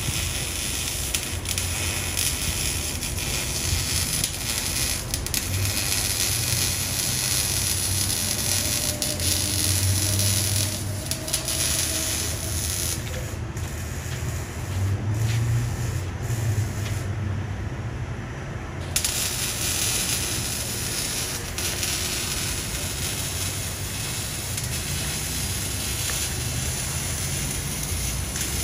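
BMW E92 328i's inline-six running through a catless exhaust: a low drone that swells and eases several times under a steady hiss.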